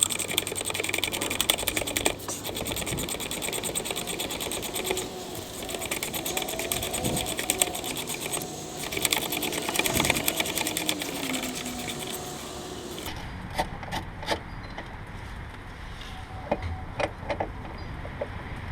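Power wrench spinning out a Ford Focus motor mount bolt: a fast, steady mechanical rattle for about thirteen seconds, then a few separate clicks and knocks once it stops.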